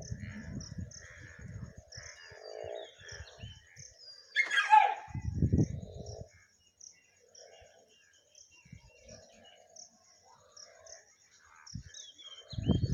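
Birds calling outdoors: short chirps repeating every half second or so, with one loud falling call about four and a half seconds in.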